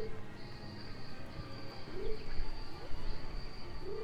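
Ambient insect sound effect: a steady high-pitched cricket-like trill, with a short low frog-like croak about every two seconds over a low background rumble.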